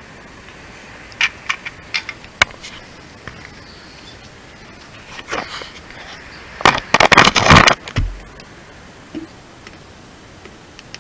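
Handling noise against a car's plastic wheel-arch liner. Several sharp clicks come in the first few seconds, then a loud scraping rustle lasts about a second and a half around the middle.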